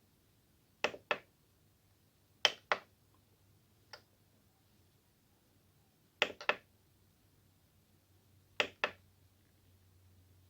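Plastic front-panel buttons on a Korg N264 keyboard being pressed, giving sharp clicks mostly in quick press-and-release pairs. There are four pairs and one single click, a few seconds apart.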